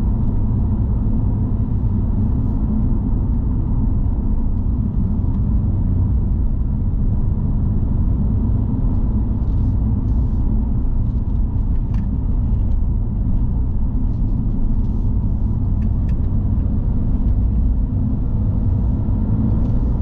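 Steady low rumble of a car driving on a paved road: engine and tyre noise heard from inside the cabin, with a few faint ticks partway through.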